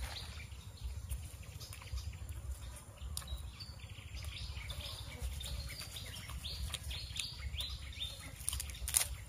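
Small birds chirping, a quick run of short high chirps through the middle, over scattered close clicks and a low rumble, with one sharper click near the end.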